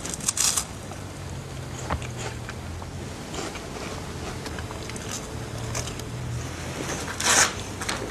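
A crunchy snack bitten into, with crackling and crinkling of plastic shopping bags. The biggest crinkle comes a little after seven seconds.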